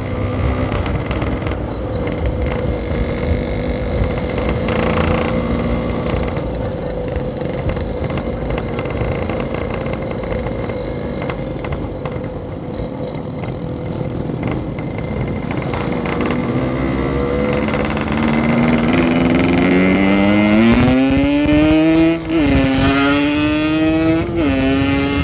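Yamaha RX-King 135cc two-stroke single-cylinder motorcycle engine running under way, with wind noise on the microphone. In the last third it revs up, pitch climbing, drops briefly at a gear change and climbs again.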